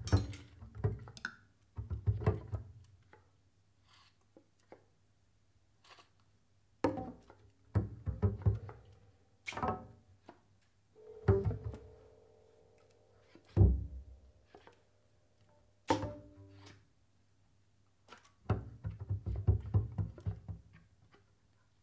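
Sparse free-improvised jazz: short clusters of plucked and knocked double bass notes and thuds, separated by near-silent pauses. A single held note sounds for about two seconds about eleven seconds in.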